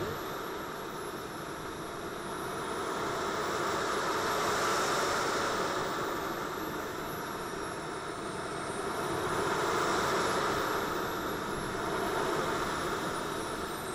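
Gas turbines of a 1/5-scale RC Avro Vulcan model running on the ground, heard from a camera mounted on the airframe: several high turbine whines that glide up and down in pitch and cross each other, over a steady jet rush that swells about four seconds in and again around ten seconds.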